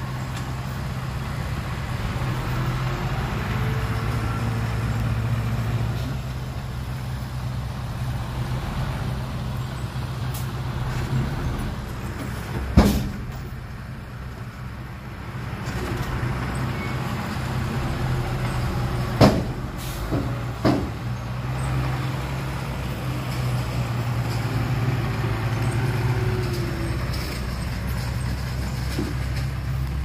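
Heavy machinery's diesel engine running, its pitch drifting up and down as it works. Three sharp knocks stand out, a little before the middle and twice more a few seconds later.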